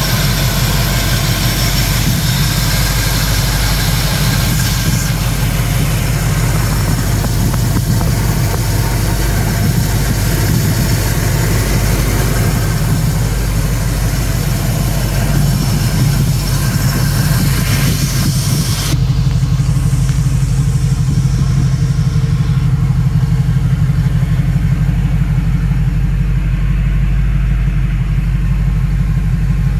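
The carbureted engine of a 1978 Pontiac Phoenix idling steadily with an even low pulse. About two-thirds of the way through, the higher hiss drops away suddenly, leaving only the low engine note.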